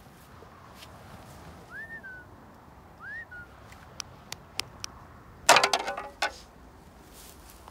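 Metal spades dropped onto grassy ground, clattering with a brief ringing about five and a half seconds in, after a few sharp clicks. Earlier, two short rising-and-falling bird chirps.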